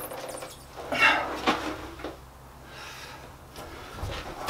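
Hot steel rod scraping and grating against another steel bar as it is levered round it to wrap a knot. The louder scrapes come about a second in and again near the end, with quieter rubbing between.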